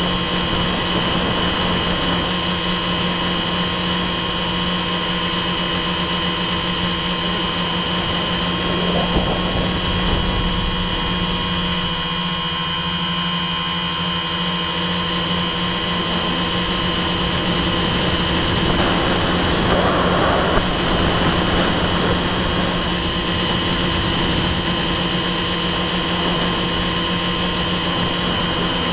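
Electric motors and propellers of a Hobbyking X900 tricopter, heard from the action camera mounted on its frame: a steady whine over a low rumble, swelling briefly about nine seconds in and again around twenty seconds.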